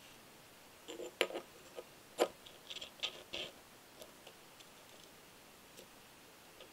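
Metal parts of a radial engine model kit clicking and clinking together as the ring gear and crankshaft parts are fitted into the crankcase: a cluster of sharp clicks and light taps in the first half, the two loudest about one and two seconds in, then a few faint ticks.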